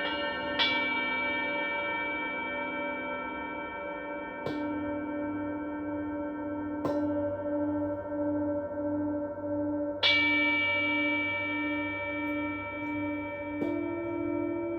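Singing bowls struck one after another, about five strikes, each ringing on in long, overlapping tones with a slow wavering pulse.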